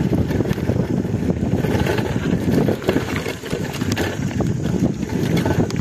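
Mountain bike rolling fast over a loose, stony dirt track: tyres crunching on gravel and the bike rattling and knocking over stones, with wind buffeting the microphone.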